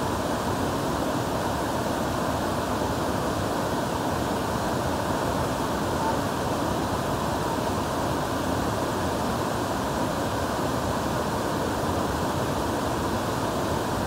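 Large tiered waterfall cascading over rock ledges: a steady rush of falling water.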